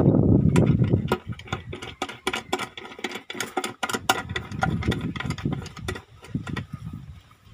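Irregular clicks and light metallic taps from hand tools and hands working on a truck's diesel engine, with a low rumble that fades out about a second in. The engine is not running.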